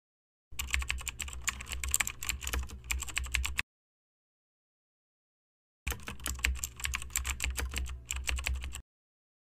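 Computer keyboard typing: rapid keystrokes in two runs of about three seconds each, separated by a couple of seconds of dead silence.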